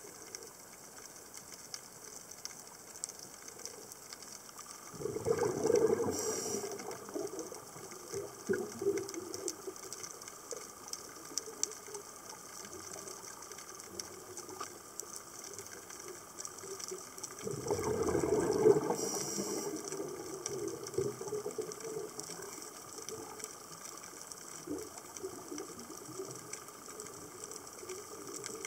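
Underwater, a scuba diver's exhaled bubbles gurgle out of the regulator twice, about five seconds in and again near eighteen seconds, each with a short hiss. Under them runs a faint, steady crackling of fine clicks.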